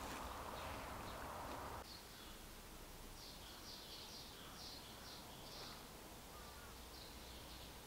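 Faint outdoor ambience: a soft hiss that drops away about two seconds in, then a run of faint, high chirps, about three a second, with a few more near the end.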